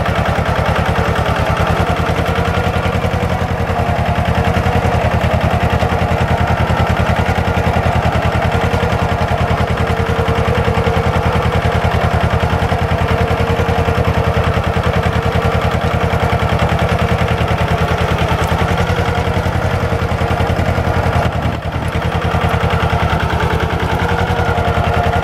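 Mahindra Jivo 245 tractor's two-cylinder diesel engine running steadily under load with a rapid, even knock while pulling a reversible plough through the soil, dipping briefly about 21 seconds in.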